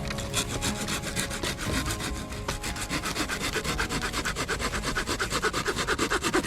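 Firewood being sawn by hand in quick, rhythmic strokes that grow louder and faster toward the end, then stop.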